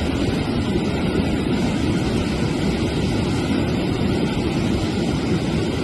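Steady, unbroken rushing of water in a heavy rainstorm.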